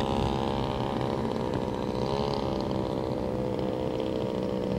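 Small outboard motor on an inflatable dinghy running steadily under way, its pitch wavering briefly about two seconds in.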